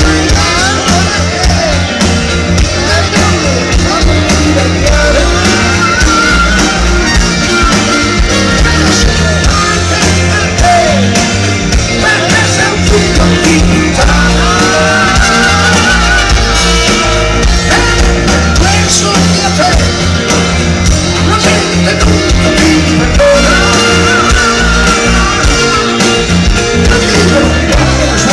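Live pop-rock band playing loud through a concert PA: drums, bass, electric guitar and keyboards, with a man singing lead.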